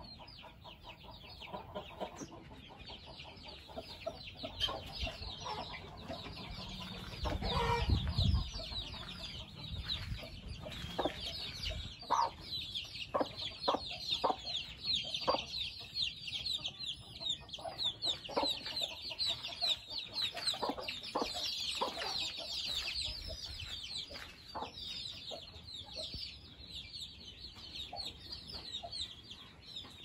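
A brood of chicks peeping nonstop in short, high, downward-sliding cheeps, with an adult hen clucking now and then over them. A brief low rumble comes about eight seconds in.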